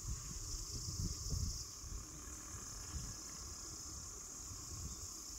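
Steady, high-pitched chorus of forest insects such as crickets, with a low uneven rumble underneath.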